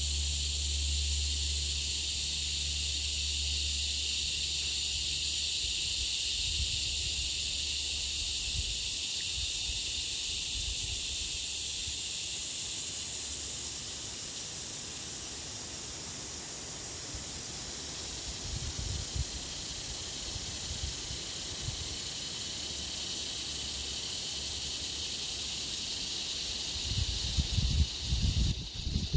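A steady high-pitched drone of insects in the bush, fading near the end. Occasional low rumbles and bumps, loudest near the end.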